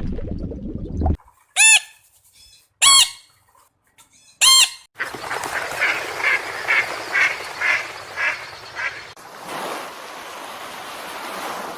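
Waterfowl calling: three loud, separate honks about a second apart, then a quick run of about eight calls, roughly two a second, over a noisy background.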